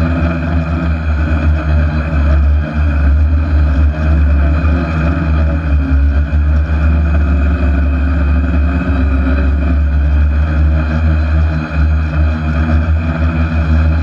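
Spider-frame hexacopter's six electric motors and propellers running steadily in flight, a constant multi-tone drone hum over a heavy low rumble, heard from the camera mounted on the drone's frame.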